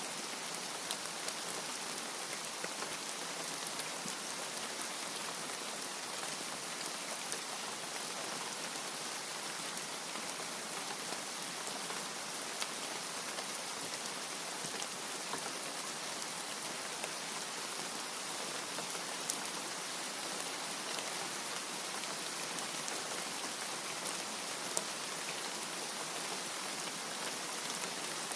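Steady, even rain with scattered louder individual drop ticks; no thunder.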